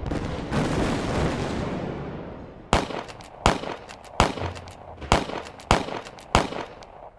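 A rumbling blast that dies away over a couple of seconds, then six sharp bangs about two-thirds of a second apart, each with a short echo.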